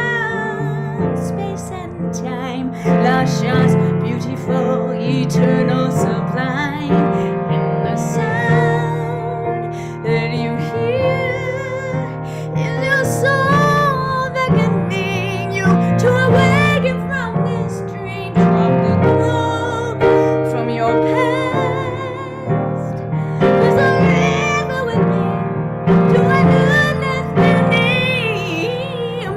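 A woman singing a slow song over piano accompaniment, her voice wavering with vibrato on long held notes.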